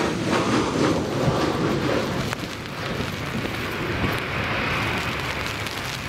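Embraer E190 jet airliner's turbofan engines rumbling as it comes in to land, mixed with gusty storm wind buffeting the microphone.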